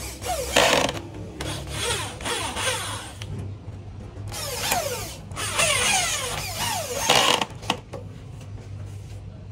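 Corded electric drill driving screws through a wooden shelf board into a steel frame, running in about four bursts, its whine falling in pitch each time the motor slows and winds down.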